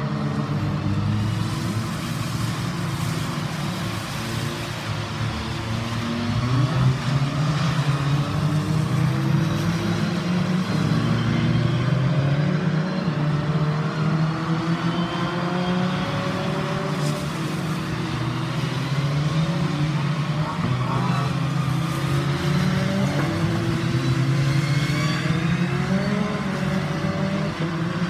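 Engines of several Beetle-bodied Fun Cup race cars running through a corner, overlapping and rising and falling in pitch as they accelerate and change gear.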